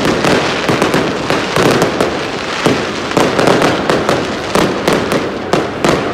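New Year's Eve fireworks and firecrackers going off in great numbers: a loud, dense, unbroken crackle of overlapping bangs, with sharp cracks several times a second.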